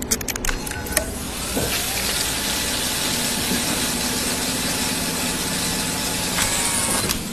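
Machinery running with a steady whirring hiss, after a few sharp clicks in the first second.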